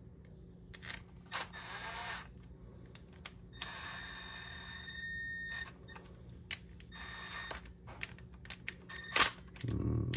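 Cordless screwdriver motor whirring in three short runs, the middle one longest, with small clicks of parts and screws between them, as screws are driven into the Briggs & Stratton carburetor.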